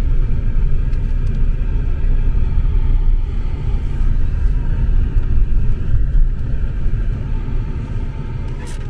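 Steady low rumble of road and engine noise inside a moving car's cabin, easing off near the end.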